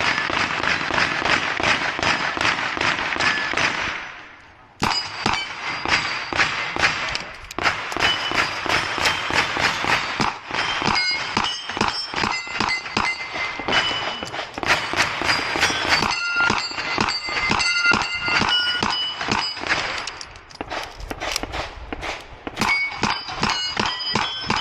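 Smith & Wesson 929 9mm revolver fired in rapid strings at steel targets, the hit plates ringing with high steady tones. There is a short lull about four seconds in.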